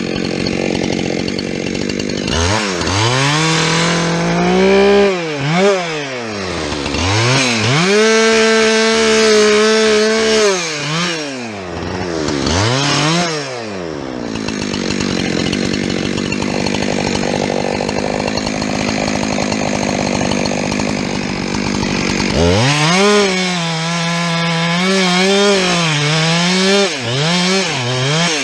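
Two-stroke chainsaw revving up and down repeatedly and held at high revs in bursts, typical of cutting into wood, with a steadier idle in the middle before it revs hard again near the end. The chain is dull.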